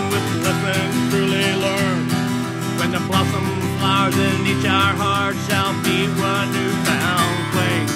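Instrumental break of a fast folk-punk song: acoustic guitar strumming chords under a lead melody whose notes waver and bend in pitch.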